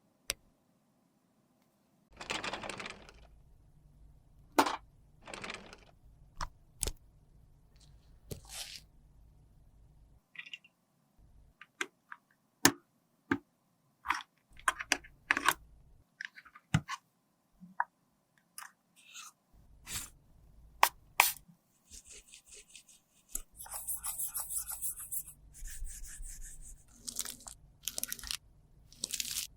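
Hands working makeup products with small tools: short swishes and a run of separate sharp clicks and taps, then a denser stretch of scraping and crunching over the last few seconds.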